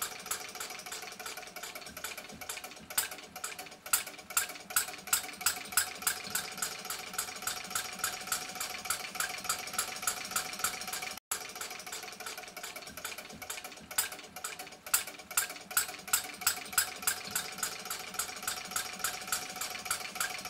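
Small kerosene-fuelled four-stroke hot-bulb model engine running, its valve gear, injection pump and governor making an even clicking at about four beats a second, with spells of louder beats.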